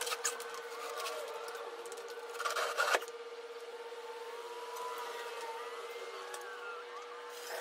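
Plywood form being pulled up off a concrete slab: scraping and a sharp knock about three seconds in, over a steady tone.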